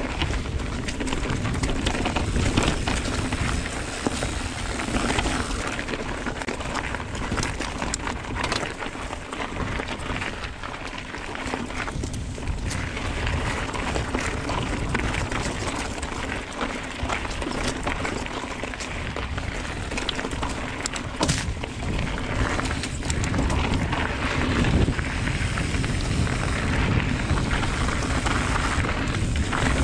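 Giant Trance X full-suspension mountain bike ridden along a dirt trail, heard from a camera mounted on the rider or bike: a constant rumble of tyres and wind, broken by frequent clicks and rattles as the bike goes over bumps.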